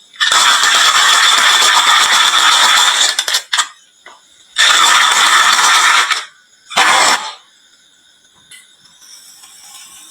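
Marbles rolling and clattering down a HABA wooden marble-run slope in three bursts: a long run of about three seconds, a second of about a second and a half, and a short one about seven seconds in.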